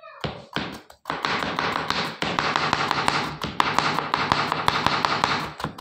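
Kitchen knife chopping raw potato into thin strips on a plastic cutting board. A few separate cuts come first, then about a second in a fast, even run of blade taps on the board.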